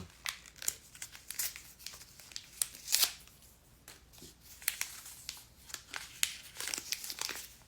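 Plastic toy packaging rustling, crinkling and tearing in quick irregular crackles as a blind pack of small figures is opened by hand.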